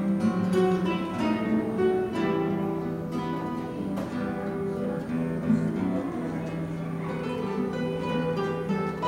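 Acoustic guitar ensemble playing together, plucked notes over a held low note.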